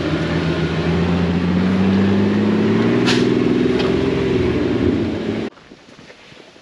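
Lifted Honda CR-V's engine pulling under load at low speed while crawling over rocks, its pitch rising slowly and then easing off, with one sharp knock about three seconds in. The engine sound cuts off abruptly about five and a half seconds in, leaving faint scattered ticks.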